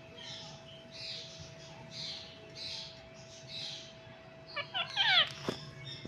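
Indian ringneck parrot calls: soft, hoarse chattering notes about once a second, then near the end a quick run of sharp squawks, each falling in pitch, the loudest part.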